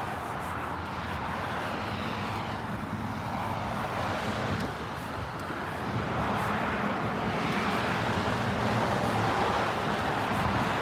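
Road traffic noise from cars passing on the adjacent road, a steady rush of tyre and engine noise that swells and fades, dipping about five seconds in and growing louder again after.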